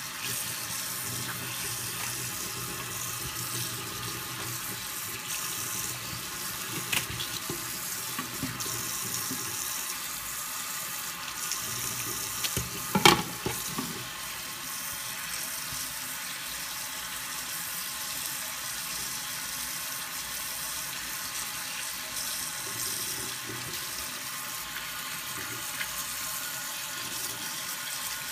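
Kitchen tap running steadily into a sink as a fish is rinsed and cleaned under the stream. A few sharp knocks about halfway through are the loudest sounds.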